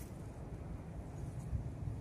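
Wind buffeting the microphone outdoors: an uneven low rumble that swells and eases, strongest about one and a half seconds in.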